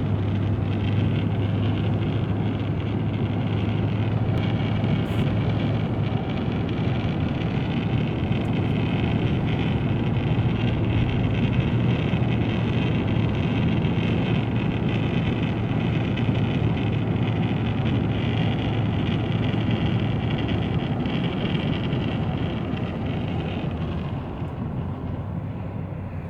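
Wind noise ripping past the driver-side window of a 2016 Ram 1500 Limited, heard inside the cab as a steady rush with a high whistle, over a low road and engine drone; it eases slightly near the end. The owner takes it for a faulty window seal, though the dealer calls it normal.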